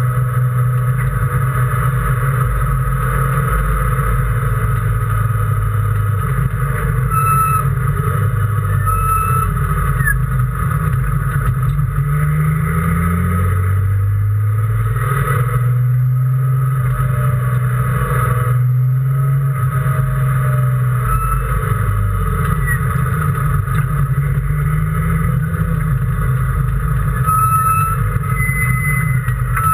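Race car engine under hard driving, its revs climbing and dropping back again and again as it pulls through the gears and slows for corners.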